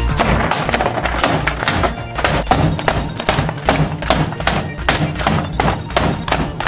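Background music with a beat, overlaid by many sharp thumps and knocks throughout.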